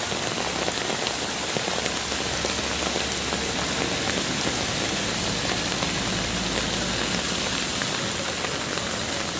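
Steady heavy rain falling on surfaces and water, an even hiss with scattered drop ticks.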